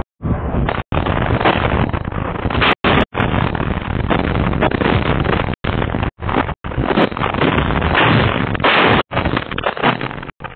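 Shell explosion close by, heard through a security camera's microphone as loud, dense noise that repeatedly breaks off in short dropouts.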